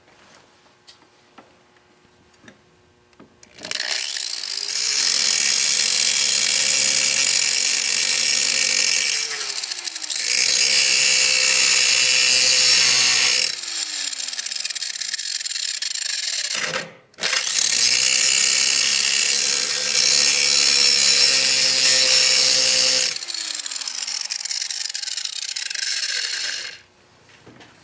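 Angle grinder grinding down the worn steel handle support on a lawnmower deck. It spins up a few seconds in and grinds in long loud passes, running more quietly between them. It stops briefly about two-thirds of the way through, starts again, and shuts off near the end.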